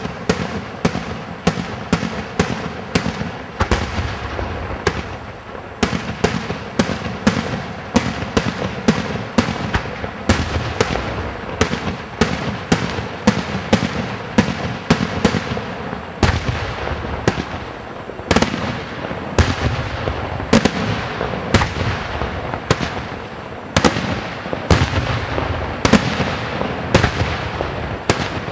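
Aerial firework shells bursting in a continuous barrage: sharp bangs come about two or three a second, and their echoes run together between them.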